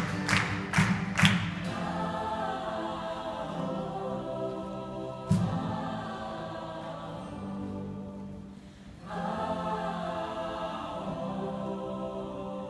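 A choir of mixed voices singing sustained chords in harmony, opening with a few rhythmic hand claps in the first second and a half. A single sharp knock comes about five seconds in, and the singing dips briefly near nine seconds before swelling back.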